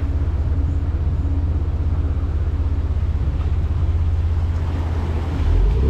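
A vehicle's engine running steadily with a low, even rumble.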